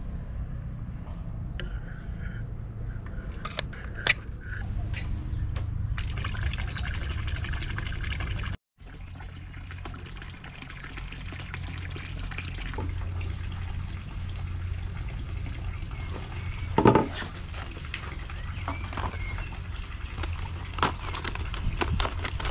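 Water from a small 12 V fountain pump splashing and trickling into a stock tank pond, a steady watery hiss that comes in about six seconds in, over a low rumble, with a few short clicks.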